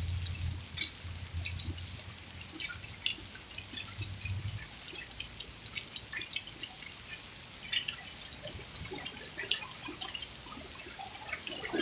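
Water dripping in scattered, irregular drops and ticks from a hailstorm, with a steady low hum that stops about four and a half seconds in.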